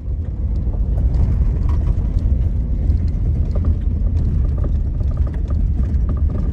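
Van driving up a rough gravel and dirt road, heard from inside the cabin: a heavy low rumble with a steady crackle of gravel crunching and popping under the tyres.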